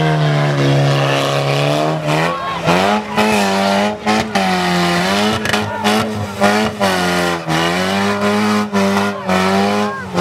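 Car engines revving hard and held at high revs, the pitch dipping and climbing as the cars push, with tyres spinning and squealing. Repeated sharp crunches and knocks of cars and caravan wreckage hitting each other break in throughout.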